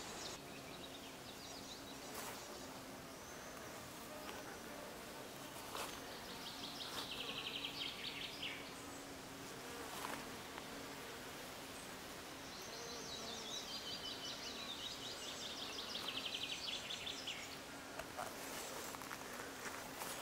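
Insects buzzing in a flower bed, a faint steady low hum. Twice a high, rapidly pulsed trill slides down in pitch over a few seconds, about six seconds in and again near twelve seconds, and there are a few soft knocks.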